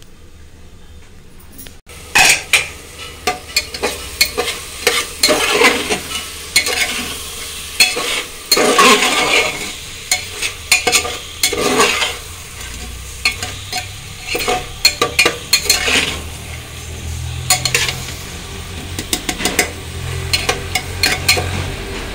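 A steel spoon stirring and scraping potatoes and onion-tomato masala as they fry in an aluminium pressure cooker, with repeated clinks and scrapes against the pot over a steady sizzle. The stirring starts about two seconds in, after a quieter stretch.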